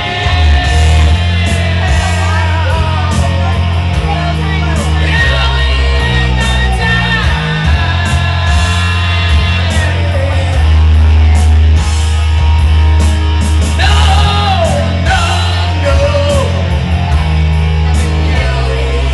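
Karaoke: a live voice singing a heavy rock song over a loud backing track of bass, electric guitar and drums, played through a bar's PA system.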